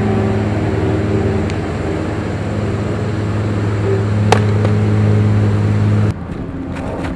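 A loud, steady mechanical hum with a low drone, with one sharp crack about four seconds in; the hum cuts off suddenly about six seconds in.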